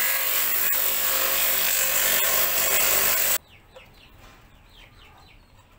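Electric motor spinning a wooden disc with sandpaper pressed against its face: a loud, steady rasping hiss that cuts off abruptly about three and a half seconds in. After that it is quiet, with chickens clucking faintly in the background.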